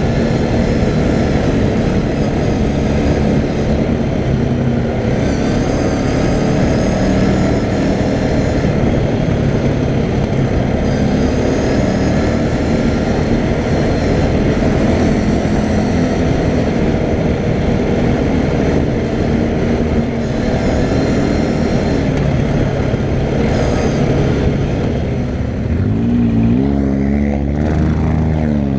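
CFMoto 500A ATV's single-cylinder engine running hard at speed over rough ground, with wind noise on the microphone. Near the end the engine pitch rises and falls several times as the throttle is eased and opened again.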